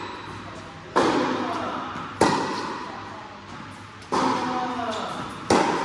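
Tennis rally: four sharp pops of tennis balls on racket strings and the court, one to two seconds apart, each ringing on in the large echoing indoor hall. The near player's racket is a Wilson Pro Staff 97 v13.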